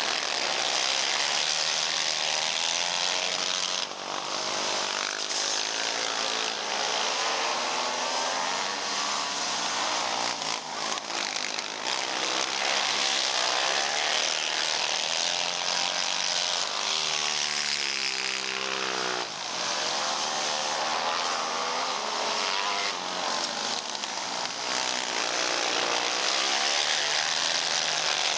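A pack of racing ATV engines running at high revs as the quads lap a dirt oval, several pitches overlapping and rising and falling as riders back off into the turns and accelerate out.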